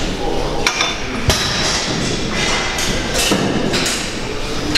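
Metal weight plates clanking again and again as a loaded bar is rowed, in an irregular series of sharp knocks.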